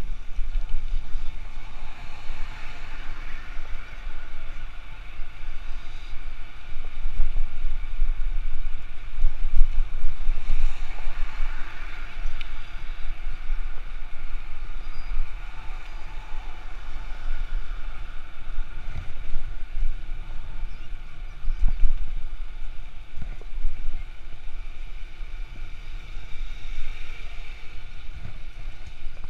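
Wind buffeting the action camera's microphone in irregular low gusts as the bicycle rides along, over the steady noise of city traffic: cars and buses. The gusts are strongest around a third of the way in and again later on.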